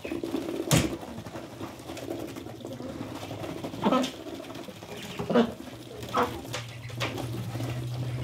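White domestic ducks feeding from a pile of grain, their bills pecking and dabbling in it with a fast, busy clicking and pattering. A handful of short, louder sounds stand out, and a low steady hum comes in about six seconds in.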